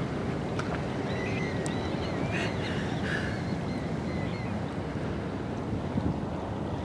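Wind buffeting the microphone, a steady low rumble with hiss. Faint, high, wavering chirps come through during the first half.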